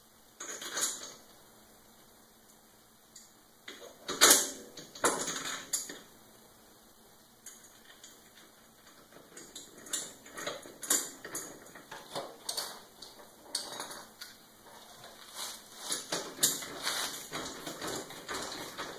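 Small metal hardware clinking and rattling against a steel frame as bolts, washers and lock nuts are fitted to a lawn sweeper's pivot points, with a sharper knock about four seconds in and frequent light clinks in the second half.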